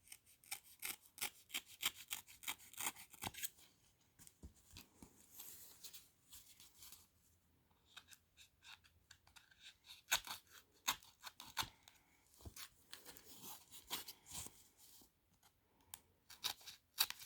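Packaging being torn open and unwrapped by hand: tearing and rustling in irregular bursts of crackles and clicks, with short pauses between.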